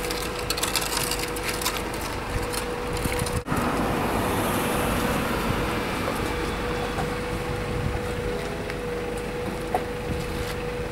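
Steady hum of a forklift's engine running, with a series of wooden knocks and creaks in the first three seconds or so, fitting a wooden boat being lowered onto its wooden cradle.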